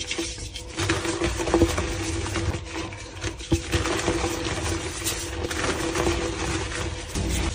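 Blocks of reformed gym chalk crushed and crumbled between the hands over a tray of loose chalk powder: a dry, gritty crunching and rustling with irregular small cracks. A steady low hum runs underneath.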